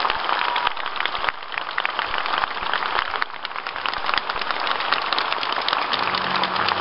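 A large audience applauding, a dense steady clatter of many hands clapping.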